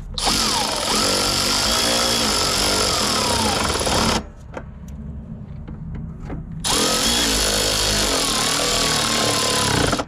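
Cordless ratchet driving in the screws that hold a new blower motor resistor in the plastic heater box. It runs in two bursts of about four and three seconds with a short pause between, and its motor whine sags in pitch as each screw draws in.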